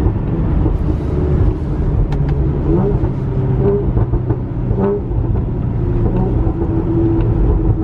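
Honda Accord engine and exhaust heard from inside the cabin with the windows up, with a few short, sharp exhaust pops over the running engine and road rumble. The pops come from a pops-and-burbles ECU tune.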